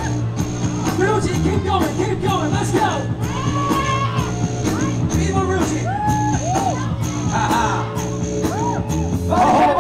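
Music with a steady beat, heavy bass and vocals.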